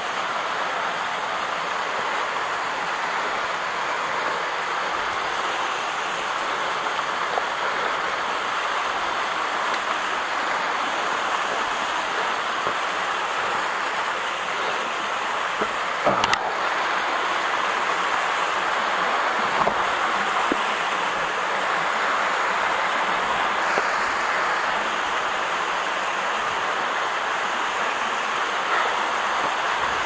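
Waterfall rushing steadily, a continuous hiss of falling water, with one sharp knock about sixteen seconds in.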